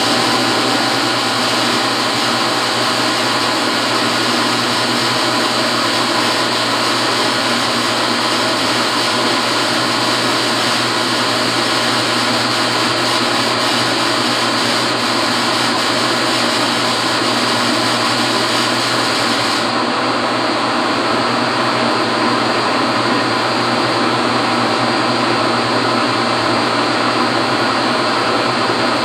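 Steady, loud motor-driven machine noise with a low hum underneath, running without a break; its hiss gets duller about twenty seconds in.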